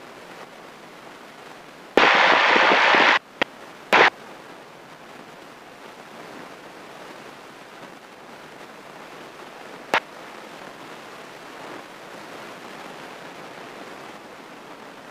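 Steady hiss of a light aircraft's cabin heard through the headset intercom while taxiing. About two seconds in, a loud hissing burst starts and stops abruptly after about a second. A click and a second short burst follow, and a single click comes near ten seconds.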